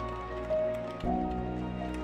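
Calm instrumental background music with long held notes, moving to a new chord about a second in.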